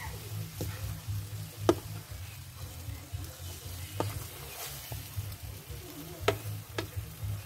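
Crab meat with onion and garlic frying in a nonstick pan, stirred and scraped with a wooden spatula and a plastic spatula, with a few sharp knocks of the spatulas against the pan. A steady low hum runs underneath.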